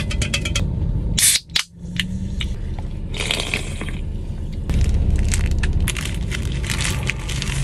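Close-up crackling and a short hiss from a can of sparkling watermelon soda being drunk. From about five seconds in comes the crinkling of the plastic wrapper of a seaweed rice ball being pulled open.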